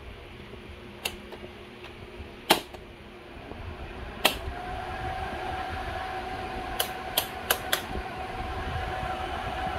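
Plastic buttons on a portable evaporative air cooler's control panel clicking as they are pressed, then the cooler's fan starting about four seconds in and running with a steady whir and a faint whine. A quick run of four button clicks comes a little after halfway.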